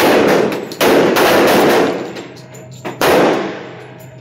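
Pistol shots from several shooters inside an indoor range, each sharp crack trailing off in a long echo. The heaviest volleys come about a second in and about three seconds in, with smaller shots in between.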